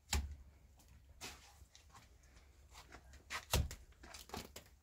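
Irregular knocks and clatters of things being handled, with a heavy thud just after the start and another, the loudest, about three and a half seconds in.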